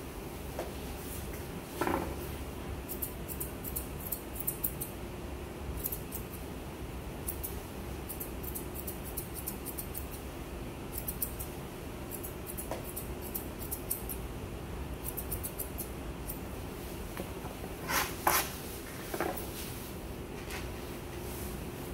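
Grooming scissors snipping through a Pomeranian's fur in quick runs of short, crisp cuts, over a steady low hum. A few louder knocks come about two seconds in and again near the end.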